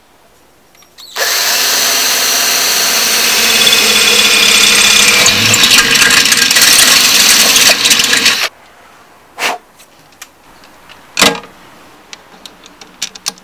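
Cordless drill boring a hole through the motorcycle pannier wall: it starts about a second in, runs steadily for about seven seconds and stops. A couple of short knocks and small clicks follow.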